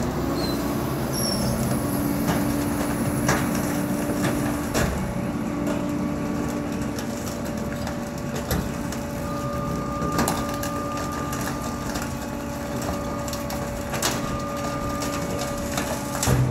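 Rear-loader garbage truck idling with a steady hum, with scattered knocks and clatters as broken sofa pieces and cardboard are handled in its bulk tipping cart. A louder knock comes near the end.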